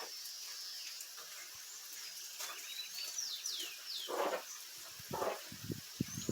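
Steady rain falling, heavier now, with a bird's quick falling chirps in the middle. Near the end come a couple of louder swishes and a run of short low knocks.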